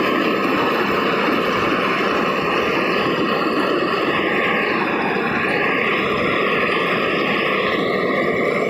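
Combine harvester running steadily, a loud, even mechanical noise.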